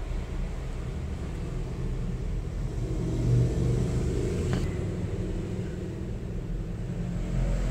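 Steady low background rumble, with a single sharp click about four and a half seconds in.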